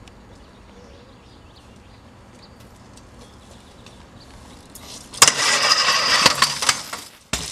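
Low outdoor background, then about five seconds in a loud, rough rush of noise with several sharp knocks as a BMX bike rides out and jumps a stair handrail.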